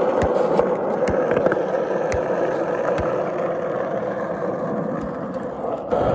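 Skateboard wheels rolling over rough asphalt, a loud steady roar heard up close, with scattered sharp knocks. The roar dips briefly near the end and then picks up again.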